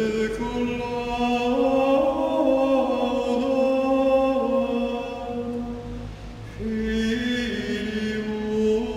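A man singing Gregorian chant alone, unaccompanied: a slow line of long held notes that step up and down, with a short break for breath about six and a half seconds in.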